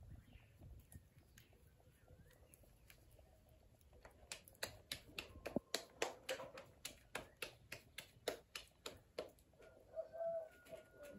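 Hands patting a ball of corn masa flat into a bocol, a quick run of soft slaps about three a second that starts a few seconds in and stops after about five seconds.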